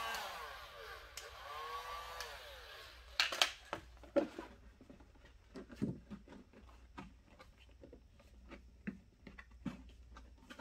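Electric heat gun shut off, its fan whine winding down and fading out over the first three seconds. Then knocks and light handling noises as the heat-softened plastic panel is pressed into its bend by hand.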